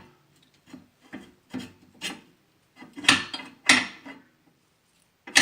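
Metal scraping and rasping in a series of short strokes, about two a second with pauses: a large bolt with washer being worked into an elliptical trainer's frame during assembly.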